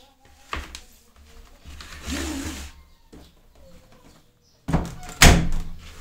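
Bosch tumble dryer door being shut: two heavy thunks close together about five seconds in, the loudest sound, after a lighter knock and a short stretch of handling noise from the duvet being pushed into the drum.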